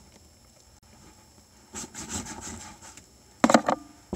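Handling noise of a package being held, picked up by phones inside the package: faint rubbing and scratching, then a brief cluster of louder knocks and rustles about three and a half seconds in.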